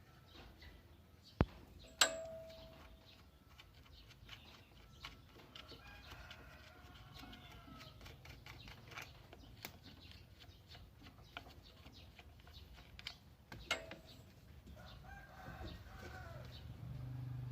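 A rooster crowing twice, each crow about two seconds long, amid a few sharp clicks, one of which rings briefly.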